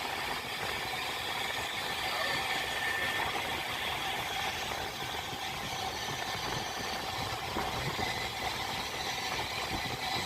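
Train running along the track: a steady rumble and rattle of the wheels and carriage, with a faint high whine mixed in.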